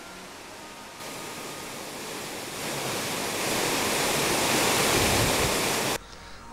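Water rushing down a small rocky waterfall: a steady rush that grows louder from about a second in and cuts off suddenly near the end. Faint music fades out in the first second.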